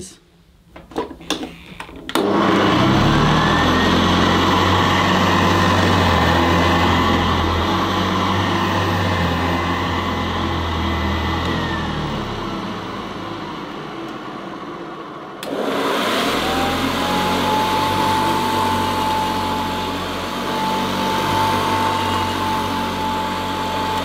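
Two vintage Hoover upright vacuum cleaners run one after the other. The first switches on about two seconds in, its motor whine rising to a high steady pitch before winding down about halfway through. The second switches on with a lower motor tone and runs steadily.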